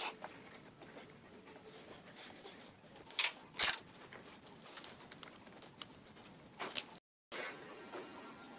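Handling noise from twisting wire ends together by hand: scattered sharp clicks and rustles of wire and plastic, the loudest a little after three and a half seconds, and another pair near seven seconds. The sound drops out completely for a moment after that.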